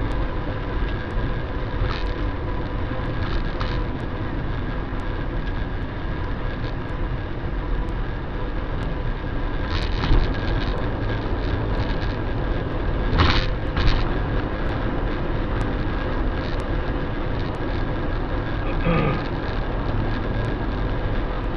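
Steady road noise inside a car cruising at highway speed: tyre and wind rumble with the engine underneath, and two brief louder swells about ten and thirteen seconds in.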